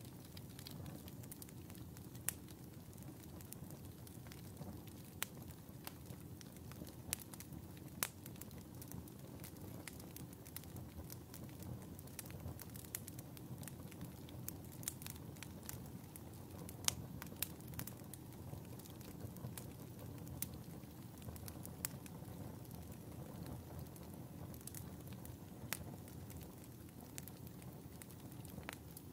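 Wood fire burning in a fireplace, crackling: many scattered sharp pops and snaps over a low, steady rumble of the flames.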